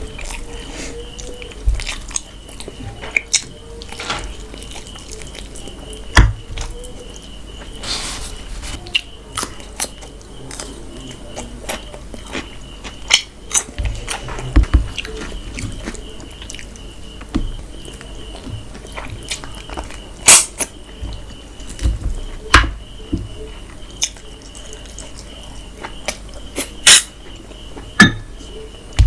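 A person chewing and eating mutton curry with rice close to the microphone: irregular sharp wet mouth clicks and smacks, a few of them loud, over a faint steady high tone.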